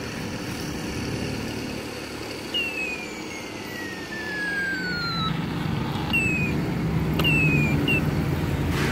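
Motor-vehicle traffic on the road: an engine hum that grows louder about halfway through, with a long high whine falling slowly in pitch and then three short falling whines.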